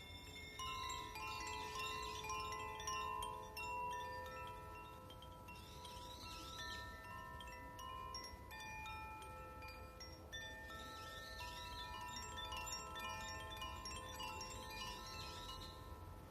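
Chimes ringing: many clear tones struck in loose flurries and left to ring on over one another, with fresh flurries about a second in, around six seconds and again around eleven seconds.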